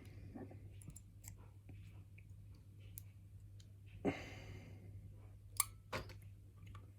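Faint light clicks of a lock and tools being handled on a bench, with a short louder clatter about four seconds in and two sharp clicks a little after, over a steady low hum.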